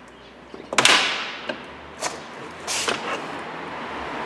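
Sharp knocks and clatter of hard parts at the car's front door while the side mirror is being unscrewed and freed: one loud knock about a second in with a short ringing tail, then two more knocks around two and three seconds in, followed by rustling handling.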